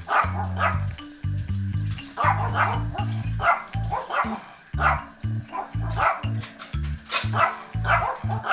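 Small dog barking in short, sharp barks, a dozen or so in three clusters, over background music with a steady rhythmic bass.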